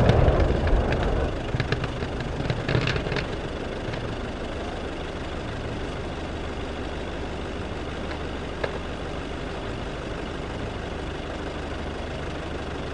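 The rumbling echo of a demolition charge, shaped charges and detonating cord destroying seized firearms, dies away over the first two to three seconds, with a few sharp cracks and pops about three seconds in. After that comes a steady low hum of background noise.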